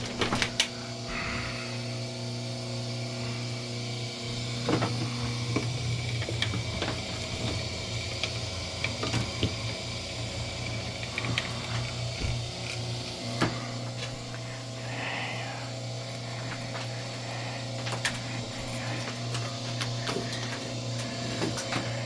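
Wire stripping machine at work: a steady motor hum with scattered clicks and scraping as insulated copper wire is fed through and slit.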